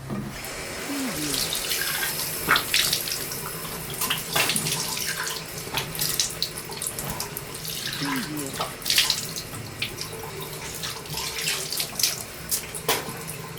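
Water running from a tap into a sink, with irregular splashes from hands scooping and washing in the stream.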